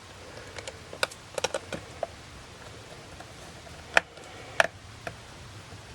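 Scattered small clicks and taps as tiny screws are driven back into a Canon 5D Mark III camera body with a small screwdriver, the sharpest ticks about four and four and a half seconds in.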